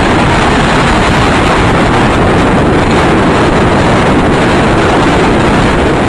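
Loud, steady wind noise from an F3 tornado's winds blasting over a ground-level probe camera's microphone, with no let-up.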